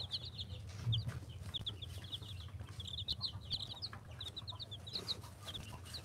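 Aseel chicks peeping: a rapid stream of short, high-pitched cheeps from several chicks at once, coming in clusters.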